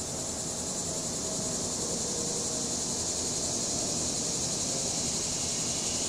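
Cicadas buzzing in a steady high chorus that grows a little louder over the first couple of seconds, over a low, even rumble of distant traffic and breeze.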